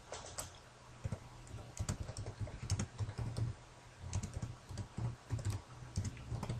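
Typing on a computer keyboard: uneven keystrokes, several a second, with short pauses between bursts.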